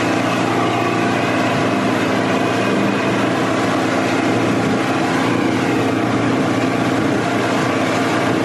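Motorboat engine running steadily at cruising speed, a constant drone under the rush of water and wind as the hull cuts through the sea.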